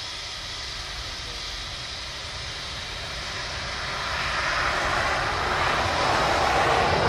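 Diesel locomotive approaching head-on: its engine's low steady rumble and running noise grow steadily louder from about halfway through.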